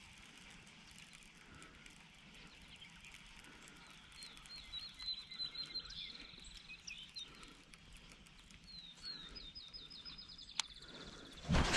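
An animal's high trilled call, heard twice: a few quick separate notes speeding up into a fast trill, over quiet outdoor ambience. A sharp click comes near the end, followed right at the end by a loud low thump.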